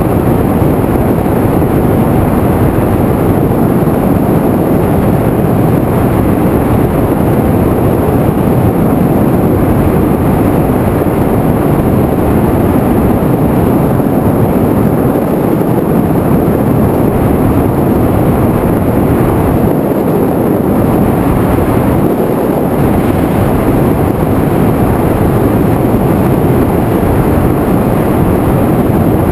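Steady, loud rushing of wind and propeller noise picked up by the onboard camera of an FPV aircraft in flight.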